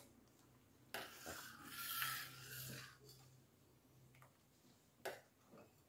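Steel spoon scraping and stirring thick sheera in a stainless steel pan: a soft rasp for about two seconds, then one short knock near the end.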